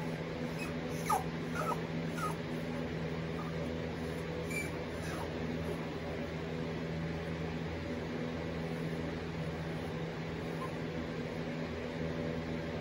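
An 8-week-old puppy whimpering, several short high whines in the first couple of seconds and a faint one about five seconds in, as it is stuck on a bed and wants to get off. A steady low hum runs underneath.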